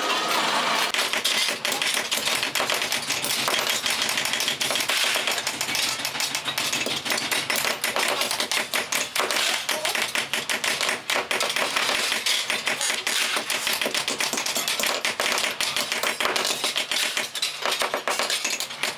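Small hand hammer tapping metal on a steel block, quick irregular strikes several a second.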